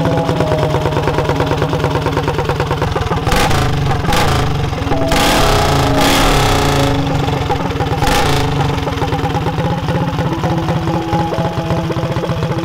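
Tillotson 225 Stage 4 single-cylinder go-kart engine running, revved up in several surges in the middle, the longest lasting about two seconds, and settling back to a fast idle between them.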